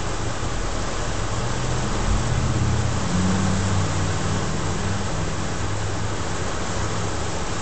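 Heavy rain pouring steadily on a vehicle's roof and windshield, heard from inside the cabin, over a low engine hum that swells briefly about two seconds in.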